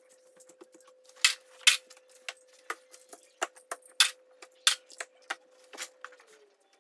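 About ten irregular sharp clicks and knocks of small hard objects, the loudest about a second in and about four seconds in, over a faint steady hum that drops slightly in pitch near the end.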